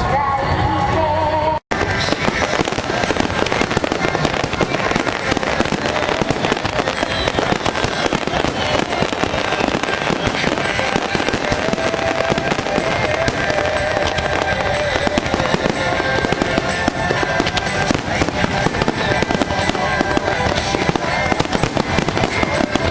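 Music playing at first; a brief cut in the audio about two seconds in; then an unbroken barrage of fireworks bursting and crackling, with music still faintly underneath.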